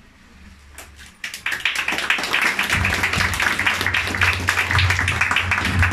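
Audience clapping, starting about a second and a half in after a quiet moment.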